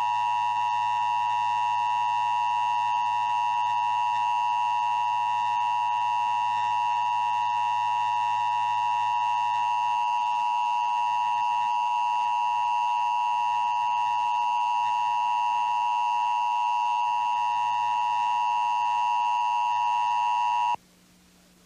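Emergency Broadcast System attention signal: a steady two-tone sine chord of 853 and 960 Hz, held unbroken. It cuts off suddenly about a second before the end, leaving only faint hiss.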